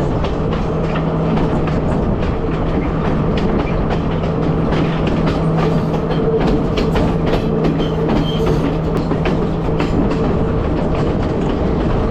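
Passenger train running along the track, heard from on board: a steady rumble of wheels on rails with a low hum, and frequent clicks and rattles.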